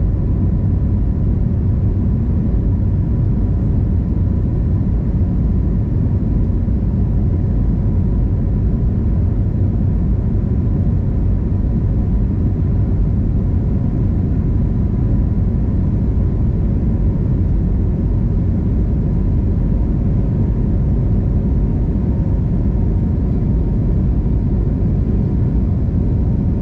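Steady low rumble of airliner cabin noise inside an Airbus A321neo, with a faint steady hum on top.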